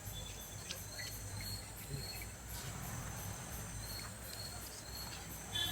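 Faint insect chirping, a quick, evenly repeating high-pitched pulse, over a low steady rumble.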